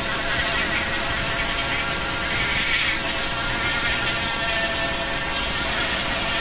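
Rotary carving tool with a small sanding drum running steadily with a whine while it sands a wood carving. Under it is the rush of a vacuum pulling dust away through a hose at the tool's tip.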